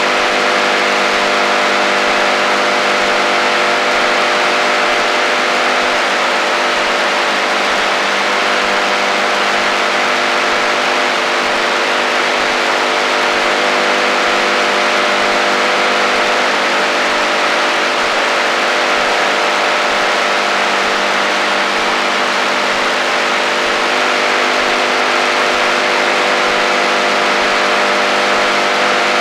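AM radio receiver on the HF band putting out interference: a steady hiss of static with several steady low humming tones and a fainter higher whine under it, unchanging throughout.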